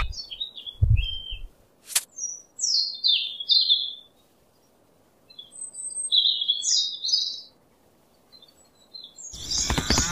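Small birds chirping in a string of short, high twittering phrases, with a sharp click about two seconds in. Near the end a loud animal call with many overtones breaks in.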